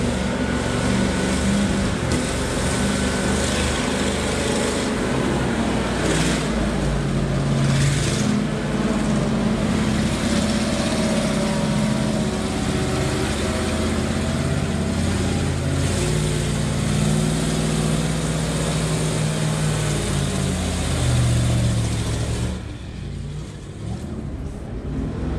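Engine of a ZIL-135 eight-wheeled Soviet military truck running under load off-road, its pitch rising and falling with the throttle. Near the end it turns quieter and thinner.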